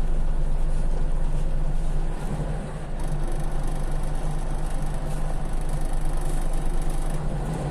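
Scania CL94UB city bus engine running, heard from inside the passenger cabin as a steady low hum that eases off briefly a little after two seconds in.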